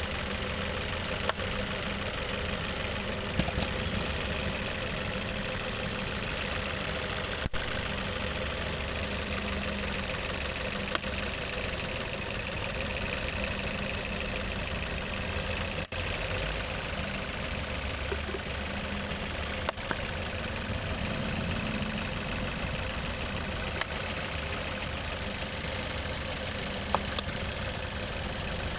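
Car petrol engine idling steadily, with a few faint clicks along the way.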